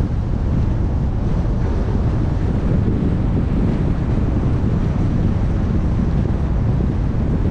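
Steady low rumble of wind and road noise from a car driving along a city street, with wind buffeting the microphone.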